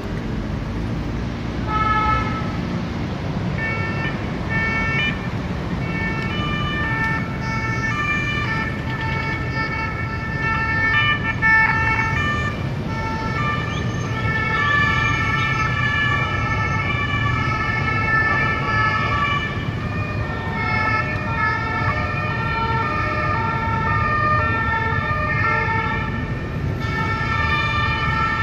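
Several French emergency-vehicle two-tone sirens sounding over one another, each stepping back and forth between two steady pitches, over the rumble of city traffic. The sirens come in about two seconds in and grow denser after that.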